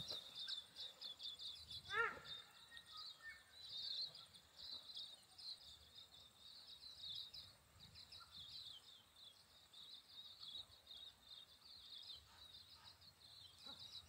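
A flock of silvereyes twittering: a steady stream of thin, high chirps, with one lower, louder call about two seconds in.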